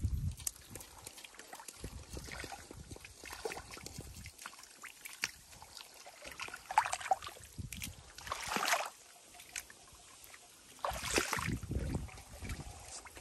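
Hands groping and splashing in shallow muddy water, with sloshing and squelching in uneven bursts. The biggest splashes come a little over halfway through and again near the end.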